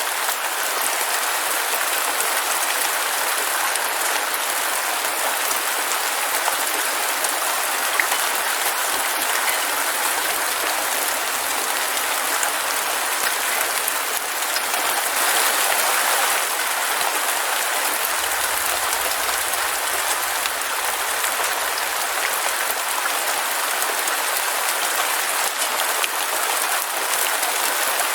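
Heavy rain falling steadily: a dense, even hiss of drops with no pauses or thunder.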